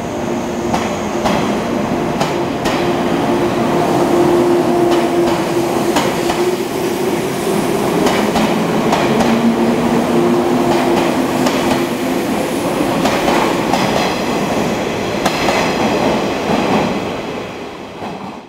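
JNR 485 series electric multiple unit running past a station platform: a steady hum with repeated clicks of the wheels over the rail joints. It fades near the end as the last car moves away.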